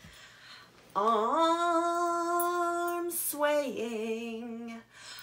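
A woman singing unaccompanied, a children's action-song line in two long held notes. The first rises briefly into a steady note about a second in. The second drops in pitch and then holds.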